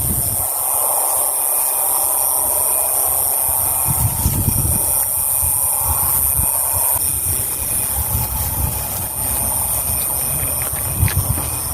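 Steady high-pitched insect chorus over low, uneven rumbling noise, with a few small clicks near the end.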